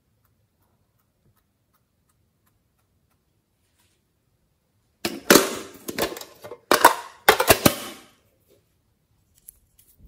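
Near silence, then from about five seconds in a run of sharp clacks and rattles lasting about three seconds as a small tin box's wire latch and lid are worked open.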